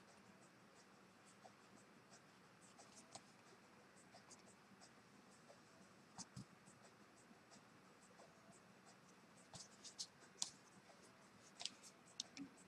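Faint scratching and light ticks of a brush pen stroking across paper as a drawing is inked, with a busier run of strokes near the end.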